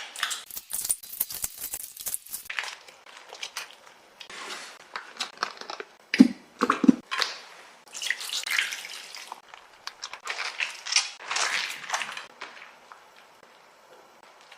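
Slime being squeezed and stretched by hand, with irregular wet clicks, pops and crackles in bursts, fading out near the end.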